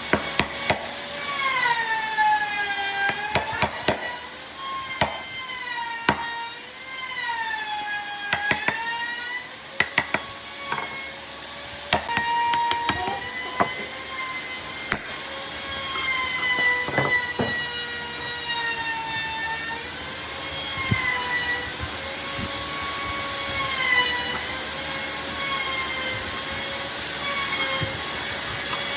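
Electric power tool working wood, its motor whining at one pitch that sags and recovers every few seconds as it is pushed into the cut, with scattered sharp knocks.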